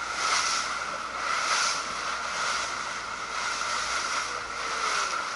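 Boat under way at sea: a steady hum with water rushing along the hull and wind on the microphone, a hiss of spray surging about once a second.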